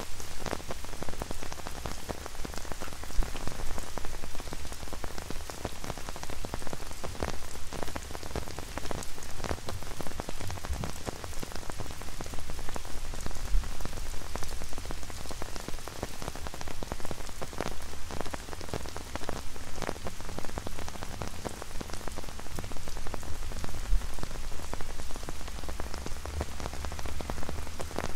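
Rain falling on an umbrella overhead: a dense, irregular spatter of drops hitting the canopy, with a steady low rumble underneath.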